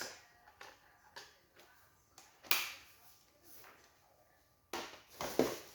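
Handling noises from a stick vacuum's plastic parts being fitted together: scattered light clicks, a short scrape about two and a half seconds in, and a cluster of knocks and rustles near the end.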